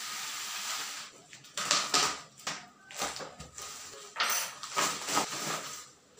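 White plastic courier mailer being peeled off a boxed product, crinkling and rustling in irregular bursts, loudest about two seconds in and again past the four-second mark.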